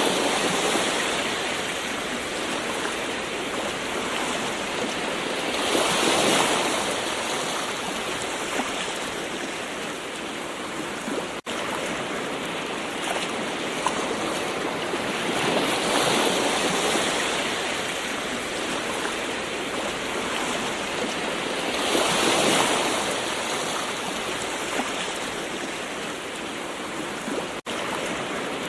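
Gentle ocean waves washing ashore: a steady surf hiss that swells and eases as each wave comes in, about every six to ten seconds. The sound drops out very briefly twice.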